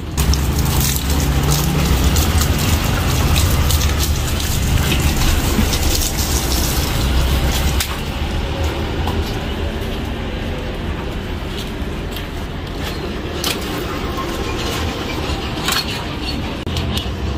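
Water sprayed from a hose onto a tree stump's trunk and roots, a steady splashing hiss with small drips and pattering, heavier for the first half then easing. A steady low rumble runs underneath.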